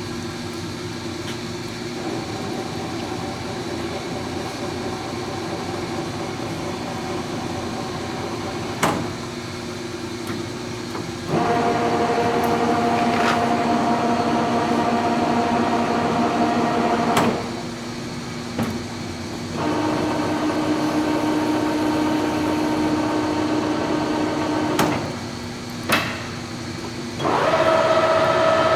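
Leblond engine lathe's headstock gearing running under power with a steady gear whine, the spindle being run at several speeds in turn so the whine jumps to a new pitch and level each time. Between runs it drops away briefly, and there are sharp clunks as the speed levers are shifted.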